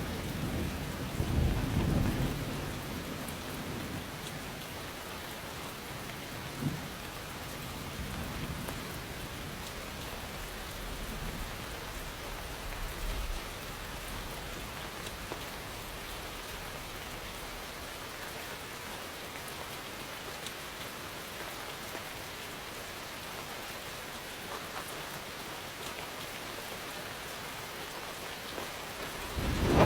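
Steady rain falling with thunder. A low rumble comes in the first few seconds, and a short crack sounds about seven seconds in. Fainter rumbling follows near the middle, and a loud roll of thunder builds right at the end.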